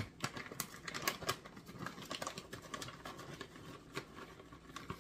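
A plastic bag of almonds crinkling while the nuts are tipped and picked out of it into a mixing bowl, with many small scattered clicks as the almonds drop in.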